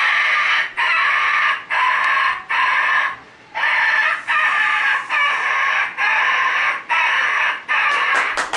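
A man's voice imitating a dog yelping in pain: a run of about ten high-pitched yelps, each under a second, with a short break about three seconds in.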